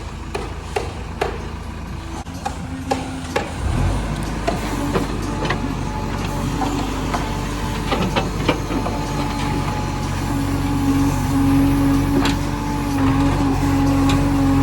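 JCB 3DX backhoe loader's diesel engine running, picking up in revs about four seconds in and then holding steady, with scattered sharp knocks and clanks over it.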